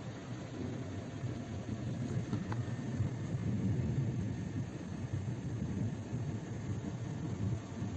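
Steady low rumble, swelling slightly in the middle.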